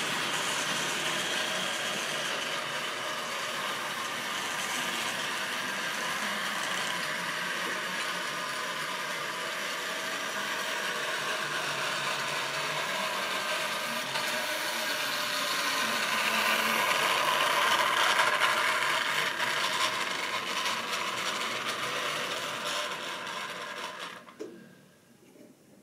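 Model railway locomotive's electric motor and gears whirring as it hauls a train of wagons, with the wheels rattling on the track. It grows louder as the train draws near, then winds down and stops near the end.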